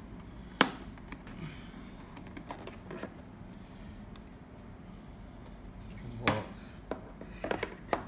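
Hard plastic clicks and light knocks as the clear plastic dust bin is unclipped from a Xiaomi robot vacuum and handled. One sharp click about half a second in is the loudest, and a few lighter clicks come near the end.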